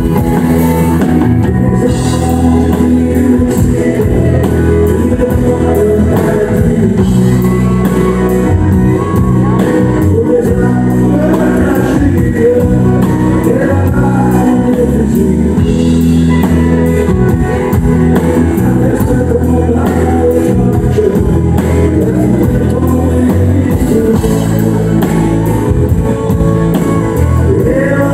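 Live country music: a man singing in French into a microphone while strumming a steel-string acoustic guitar, loud and continuous.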